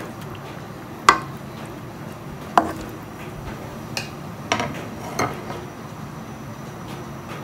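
A spatula knocks against a wok five times at uneven intervals, the first two the loudest, while a fish broth simmers with a steady low sound underneath.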